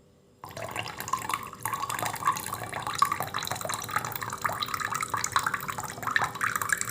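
Homemade bilimbi-flower sugar syrup poured through a strainer into a glass: a continuous splashing trickle that starts about half a second in and runs on past the end.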